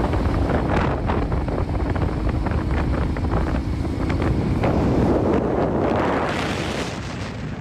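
Wind buffeting the microphone while riding a motorcycle at road speed, with the motorcycle's engine running underneath the wind noise.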